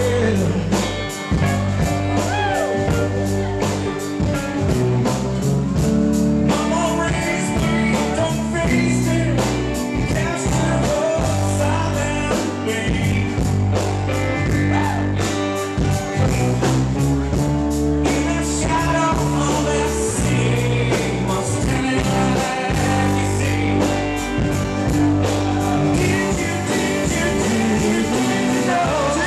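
Live rock band playing: electric and acoustic guitars over bass guitar and a steady drum beat.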